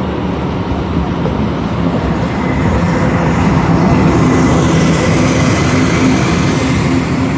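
A large vehicle engine drones steadily with a low hum. It grows louder over the first few seconds and then holds.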